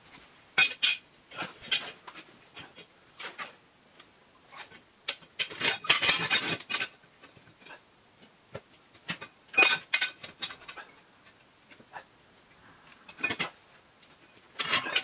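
Steel parts of an old rusty leghold trap and a flat steel bar clinking and clattering together as they are handled and fitted on a concrete floor, in short irregular bursts, the busiest about six seconds in.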